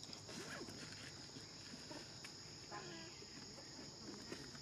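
Steady, high-pitched drone of insects, with faint small sounds close by.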